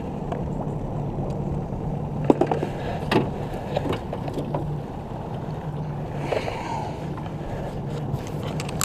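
Outboard motor of a small fishing boat running steadily with a low hum, with a few sharp clicks about two and three seconds in.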